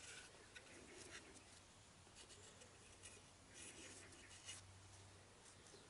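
Near silence: faint rubbing and a few light scuffs and ticks from hands handling a removed motorcycle alternator, over a faint low hum.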